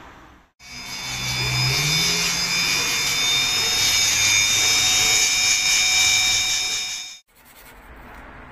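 Handheld electric rotary tool running at high speed with a steady high-pitched whine, its motor pitch rising as it spins up just after it starts. It starts and stops abruptly, followed by faint rubbing of the stone on a sandpaper block.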